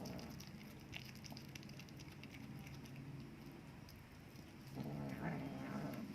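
A cat eating, with wet chewing and tongue clicks throughout. Near the end the cat makes a low, droning vocal sound as it eats.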